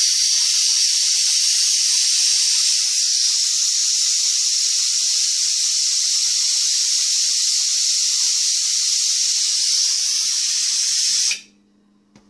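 Steam hissing loudly from the opened petcock valve of a 1920s All American No. 7 pressure canner, a steady high hiss that cuts off suddenly about eleven seconds in.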